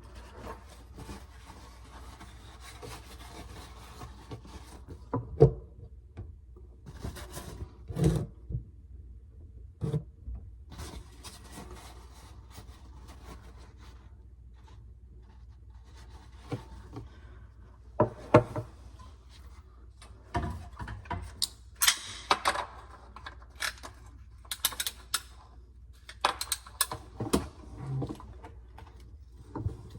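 Irregular knocks, clicks and rubbing from hand work with tools and plastic pipe fittings, with two sharp knocks standing out, the first about five seconds in and the second about eighteen seconds in.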